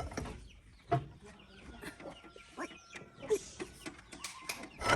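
Chickens clucking, with several short knocks, the loudest about a second in and near the end.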